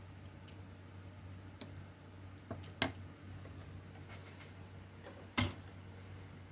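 A few sharp clicks and light taps of tools and small parts handled on a workbench during kit soldering, the loudest about five seconds in, over a low steady hum.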